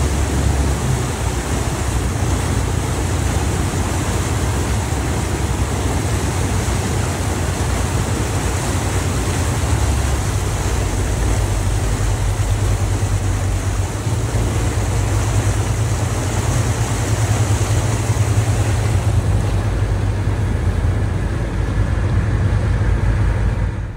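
Small ferry's engine running steadily under way, a deep hum, mixed with the churn of its propeller wash and wind on the microphone.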